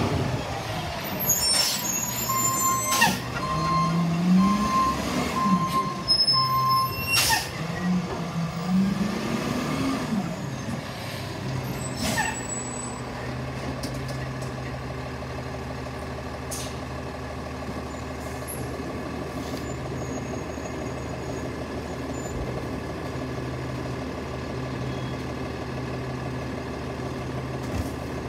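Freightliner recycling truck's diesel engine revving up and down as it pulls in, with several sharp air-brake hisses and a run of beeps for a few seconds. After about 12 seconds it settles to a steady idle.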